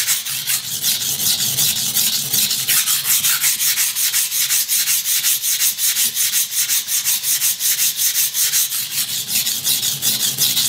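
A cheap soft-steel Ikea kitchen knife being sharpened on a cheap hardware-store waterstone: the blade grinds in rapid, even back-and-forth strokes, several a second. The stone is soft and cuts slowly, loading the blade with muddy slurry.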